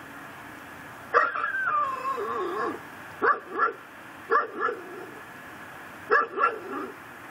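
Pit bull barking. About a second in comes one long, drawn-out bark that falls in pitch. Short barks follow in twos and a three.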